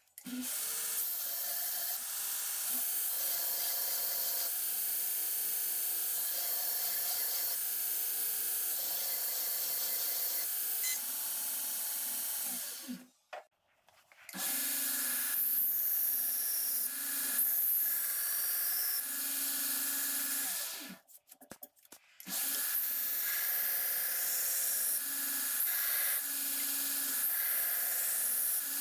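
Belt grinder running while an S35VN stainless steel knife blade is ground against the belt, a steady machine sound with a hissing grind. The sound breaks off twice for about a second.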